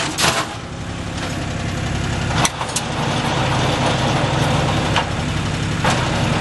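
4WD farm tractor's diesel engine running steadily at idle, with a few sharp clicks or clunks over it, the loudest about two and a half seconds in.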